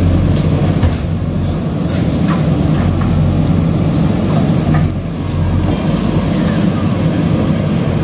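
JCB 3DX backhoe loader's diesel engine running steadily under load as the backhoe arm digs and lifts a bucket of soil and stones, with a few faint knocks from the bucket and rocks.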